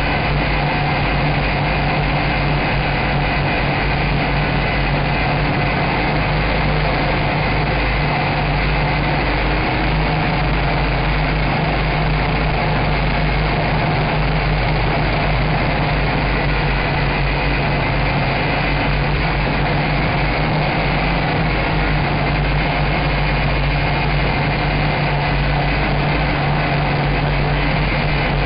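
Nine Eagles MOLA M24 (Galaxy Visitor 6) quadcopter's motors and propellers buzzing steadily in flight, heard close up through the drone's own onboard camera.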